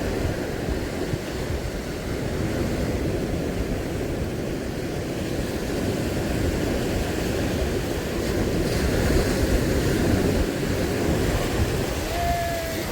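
Sea surf washing on the shore, with wind rumbling on the microphone.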